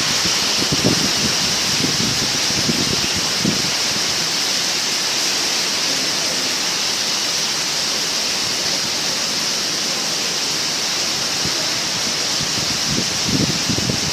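Heavy storm rain pouring steadily as a dense, even hiss. Low gusts of wind buffet the microphone a few times in the first seconds and again near the end.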